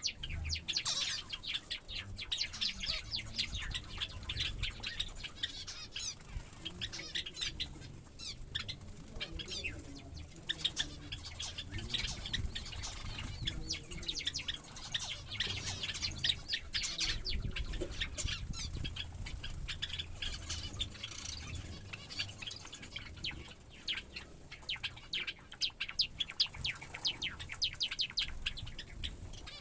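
Small finches and Java sparrows chirping rapidly and constantly, with bursts of wing fluttering as they bathe.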